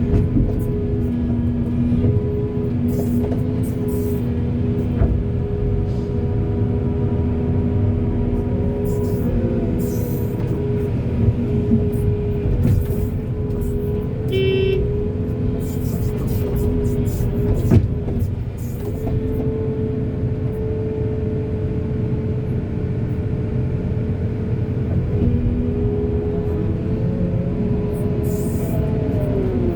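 A digger's engine running steadily under working load, its pitch shifting as the hydraulics work, with scattered metallic clanks and knocks throughout.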